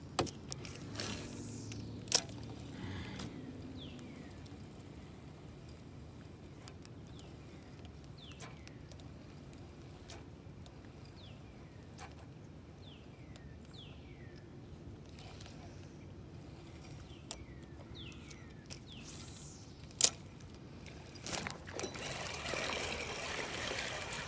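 Water trickling and dripping beside a canoe, with a couple of sharp clicks and a run of short falling chirps, about one a second. A rustling noise rises in the last two seconds.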